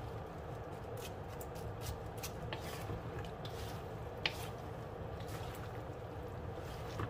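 Wooden spatula stirring and tossing sliced purple cabbage and eggplant in a metal wok: irregular light scrapes and clicks, with one sharper click about four seconds in, over a steady low hum.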